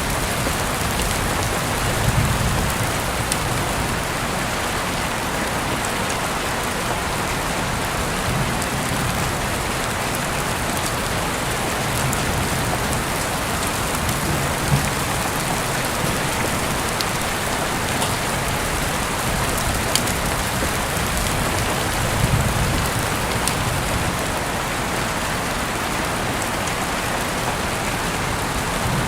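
Steady rain falling, an even hiss with scattered sharp ticks of drops and a few soft low swells now and then.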